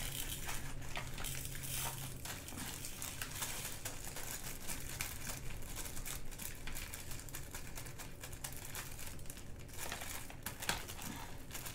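Small plastic bags of diamond painting drills crinkling and rustling as they are handled, with many small irregular clicks.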